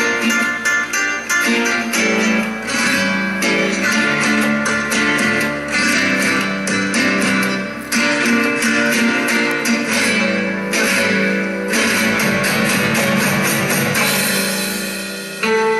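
Spanish-style dance music led by fast plucked and strummed guitar.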